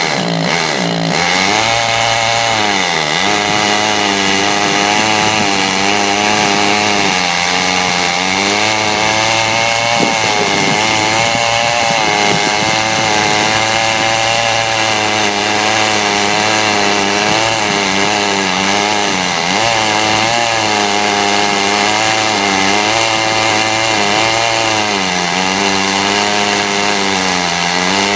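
Large Stihl two-stroke chainsaw milling lumber, running loud and near full throttle throughout. Its engine note sags and recovers several times as the cut loads the saw.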